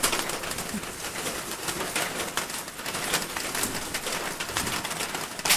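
Hands rustling and shifting the nesting material in a rabbit nest box: irregular rustles and small clicks while the newborn kits are moved to the back of the box.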